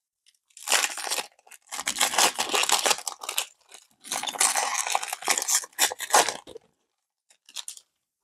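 Wrapper of a Donruss football trading-card pack being torn open and crinkled, in several crackling bursts with short pauses between them.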